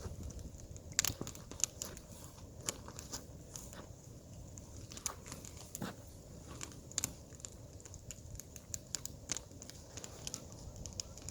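Firewood fire crackling, with irregular sharp snaps several times a second over a low steady rush.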